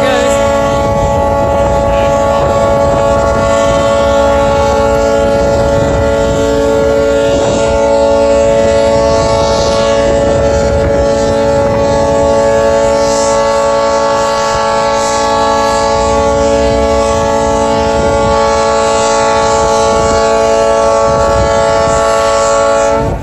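Ships' horns blowing together in one long, steady chord as a launch salute, cutting off abruptly near the end.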